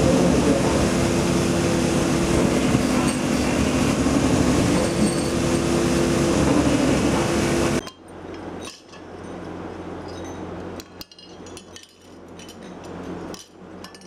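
An electric motor drives a belt-driven grinding wheel, running steadily while a stainless steel latch part is held against it. The noise cuts off suddenly about eight seconds in. Then stainless steel latch parts clink and tap as they are handled on a concrete floor.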